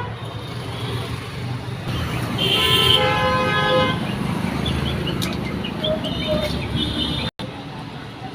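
Road traffic running steadily, with a vehicle horn sounding one held honk for about a second and a half a couple of seconds in, then a few short toots.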